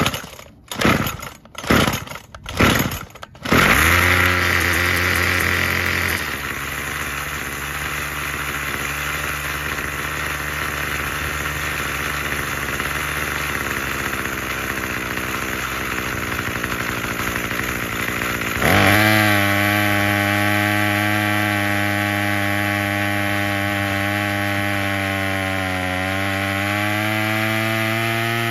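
Craftsman 27cc two-stroke string trimmer engine pull-started: several quick rope pulls, catching about three and a half seconds in. It runs fast briefly, then settles to a steady idle; about nineteen seconds in the engine speed rises as the carburetor screw is turned, with a brief dip and recovery near the end.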